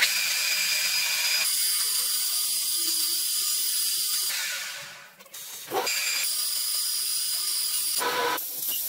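Metal lathe turning a steel bar, the tool cutting the metal with a steady high hiss and whine. The sound dies away for about a second midway and resumes, shifting briefly again near the end.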